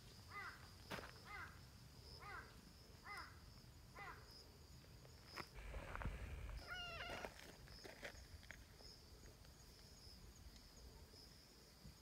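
A series of short, falling animal calls, about one a second, then a louder wavering call about seven seconds in, over a faint steady high-pitched hum.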